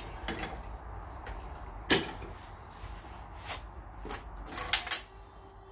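A few sharp metallic clanks and knocks from a black iron pipe tee and tools being set in a bench vise, the loudest about two seconds in and two close together near the end, over a low steady hum.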